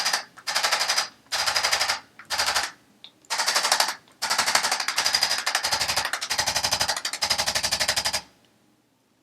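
Handheld motorized percussion instrument rattling out very fast rows of impacts, switched on and off in about nine short bursts, each under a second to a second and a half long.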